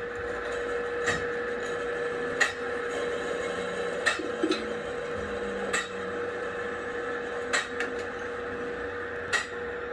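Steady hum of metalworking machinery, with six sharp metallic clicks at an even pace, a little under two seconds apart.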